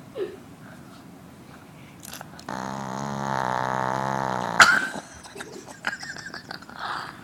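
A dog snoring: one long, steady buzzing snore of about two seconds, starting a couple of seconds in and ending in a sharp snort, followed by small snuffling sounds.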